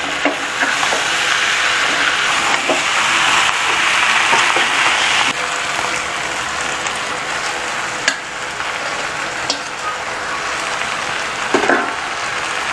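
Vegetables sizzling and frying in hot mustard oil in a pan, stirred now and then with a spatula that gives a few sharp clicks against the pan. The sizzle is loudest for a few seconds early in the stretch.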